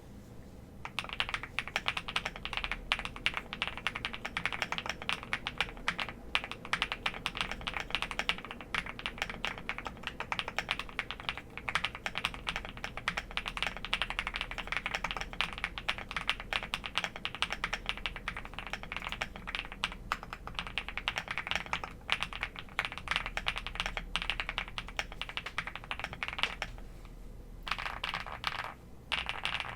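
Typing on a Geekzb Story 65 R3 gasket-mount mechanical keyboard fitted with stock Wuque Studio POM+ linear switches and dye-sub PBT keycaps: a fast, continuous stream of key clacks with the deep 'pool ball' clack of POM switches, pausing briefly a couple of times.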